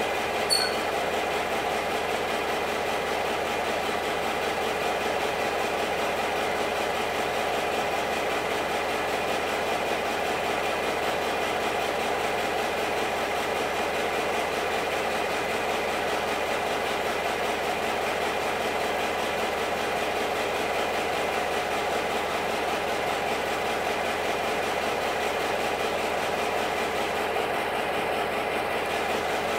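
A stationary train's engine idling steadily, with one short click about half a second in.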